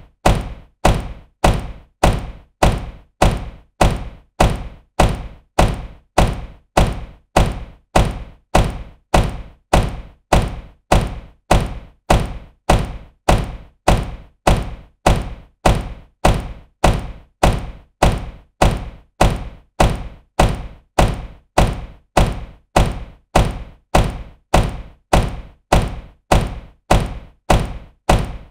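Car door slamming shut with a solid thunk, the same slam repeated evenly over and over, about one every 0.6 seconds, each dying away quickly.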